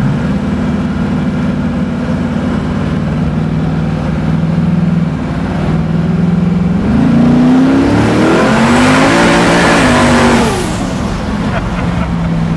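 Twin-turbocharged Nelson small-block V8 of the 'F Bomb' Camaro, heard from inside the cabin. It cruises steadily, then about seven seconds in it revs up under hard acceleration, rising in pitch with a growing hiss. It lets off sharply a few seconds later and settles back to a steady cruise.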